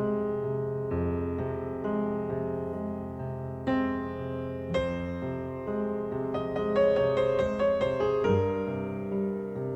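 Background piano music, with a run of quick notes a little past the middle.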